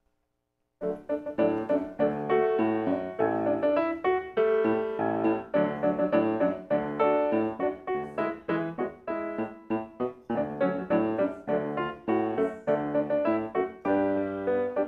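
Piano music, coming in about a second in after a brief silence, with a steady run of quick notes.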